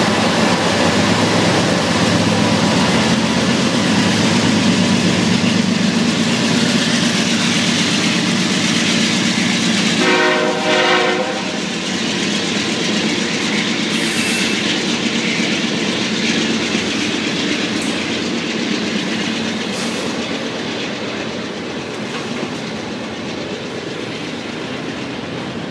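BNSF freight train rolling past, a steady heavy rumble and clatter of cars on the rails that eases off slightly in the second half. About ten seconds in, a locomotive air horn sounds one short blast of several notes at once.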